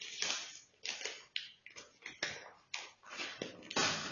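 Brown paper shipping packaging being picked at and crinkled by fingers: a run of short, irregular rustles and scratches, then a longer, louder rustle near the end.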